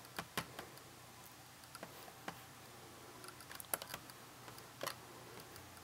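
Faint, irregular clicks of a computer keyboard and mouse.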